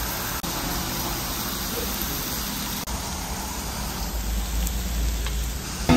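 Pork belly sizzling on a round grill pan over a portable gas stove: a steady hiss, with a low rumble rising in the last couple of seconds.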